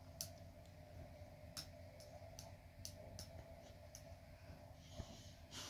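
Near silence: room tone with a faint steady low hum and about half a dozen faint, irregular clicks.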